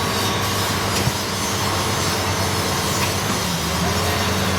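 Heavy-equipment diesel engine running steadily at a constant pitch, with one short knock about a second in.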